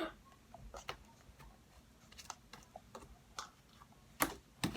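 Slime being mixed in a cup: scattered small clicks and taps at an uneven pace, the loudest two near the end.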